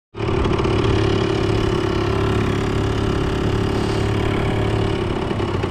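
Motorbike engine running steadily as the bike is ridden along at an even speed, its pitch holding level throughout.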